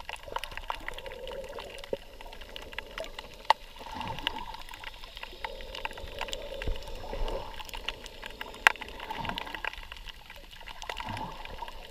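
Muffled underwater water noise picked up by a submerged camera, swelling and fading every couple of seconds, with many scattered sharp clicks and crackles throughout.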